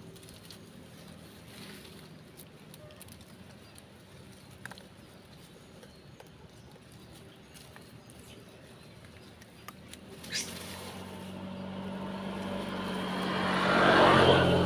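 Faint outdoor ambience with a few small ticks. After about ten seconds, a motor vehicle's engine approaches, growing steadily louder and loudest near the end.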